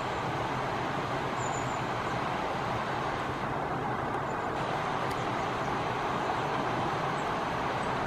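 Steady rush of flowing water, with a few faint high chirps about a second and a half in.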